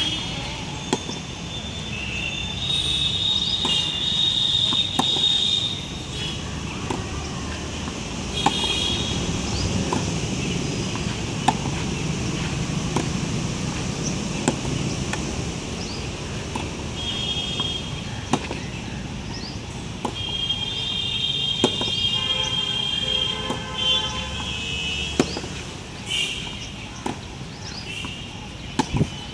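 Tennis balls struck back and forth in a rally, a sharp racket-on-ball pop about every one and a half to two seconds. Steady background hum underneath, with high-pitched chirps now and then.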